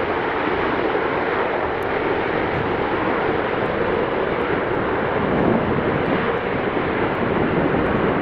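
Airbus A380's Rolls-Royce Trent 900 jet engines: a loud, steady rush of engine noise as the airliner rolls out on the runway just after touchdown.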